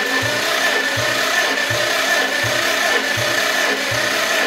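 Continental flathead four-cylinder engine being cranked over by its starter with the spark plugs out for a compression test. The starter whine is steady, with a low pulse about every three-quarters of a second as the tested cylinder compresses against the gauge. This cylinder builds only about 65–67 PSI, a low compression reading.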